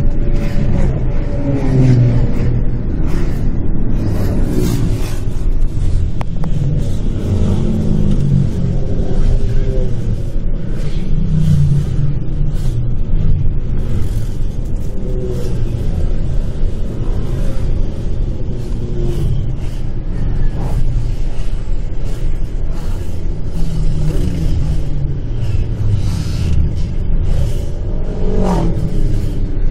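Steady engine and road rumble inside a moving minibus's cab. Engine notes rise and fall several times as motorcycles pass the other way.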